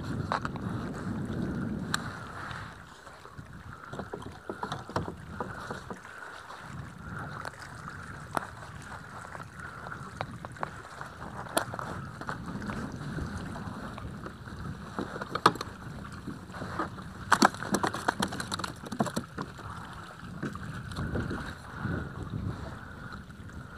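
A fish being reeled in on a baitcasting reel from a kayak: reel cranking with scattered clicks and knocks of handling, a cluster of louder ones about three quarters of the way through. A low rumble of wind on the microphone is strongest at the start.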